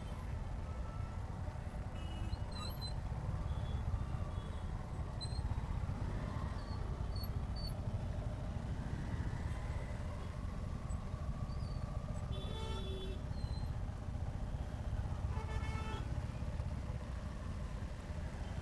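Motorcycle riding through city traffic, heard from a bike-mounted camera: a steady low rumble of engine, wind and road noise. Vehicle horns honk briefly twice, about twelve and fifteen seconds in.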